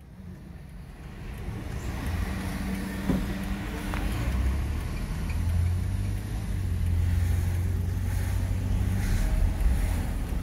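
Car driving, heard from inside the cabin: a steady low road and engine rumble that grows louder over the first couple of seconds as the car picks up speed.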